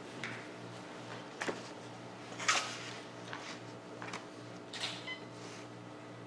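Quiet room tone with a low steady hum, broken by a few scattered faint rustles and soft knocks of paper booklets being handled; the loudest comes about two and a half seconds in.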